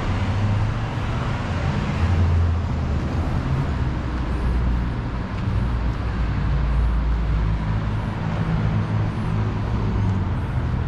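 Street traffic: motor vehicles running past with a steady low engine rumble.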